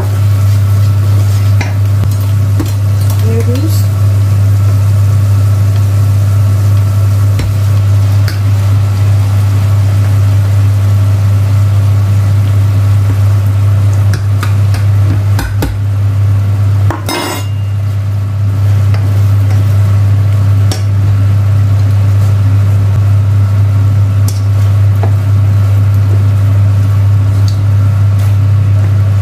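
Wooden spoon stirring and scraping a cream sauce and penne around a stainless steel frying pan, with light sizzling and occasional clinks against the pan, and a brief louder clatter just past halfway. A loud steady low hum runs underneath.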